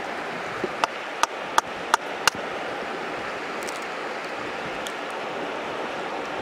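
A hen's egg tapped against the rim of a steel plate to crack it: five sharp clicks about three a second, in the first couple of seconds, over a steady outdoor hiss.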